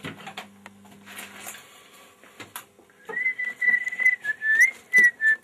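A person whistling a few held notes, with a small up-and-down bend in the middle, starting about three seconds in. Before it, light clicks and knocks, and a low steady hum that stops about a second and a half in.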